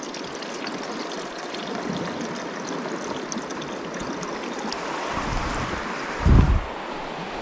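River water rushing steadily, with scattered light clicks and a short, loud, low thump about six seconds in.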